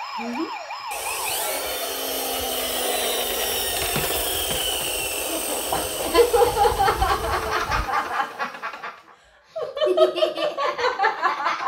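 A siren wailing at the start, its pitch swinging quickly up and down. Then several seconds of dense, noisy din with a low rumble, and people laughing near the end.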